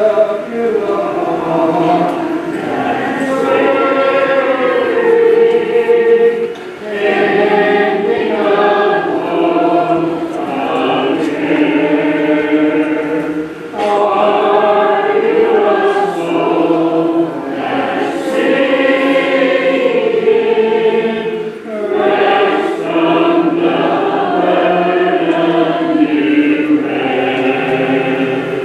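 Church congregation singing an invitation hymn together in unaccompanied four-part harmony, in long phrases with brief pauses for breath about every seven seconds.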